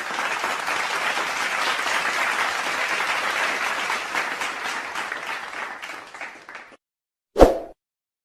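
Recorded applause, a dense crowd clapping that fades out about seven seconds in. A single short, loud thump follows near the end.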